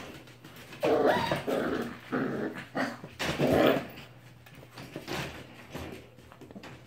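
Puppies play-growling as they wrestle, with about four loud rough growls in the first half, then quieter scuffling and clicks of paws on the floor.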